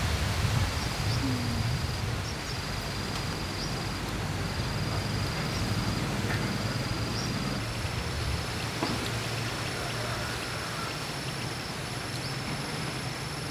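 Insects trilling in high-pitched pulses about a second long with short breaks between them; a second, higher trill joins about halfway through. Underneath is a steady low background rumble.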